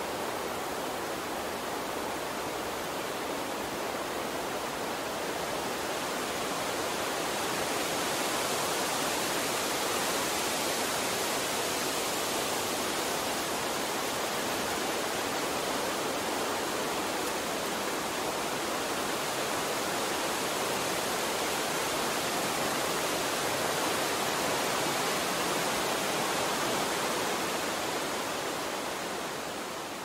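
Steady, even rushing ambient noise with no distinct events. It grows a little louder about seven seconds in and eases off near the end.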